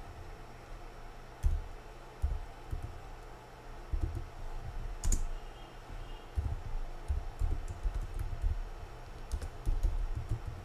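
Computer keyboard being typed on: irregular keystrokes, sparse at first and then in quicker runs.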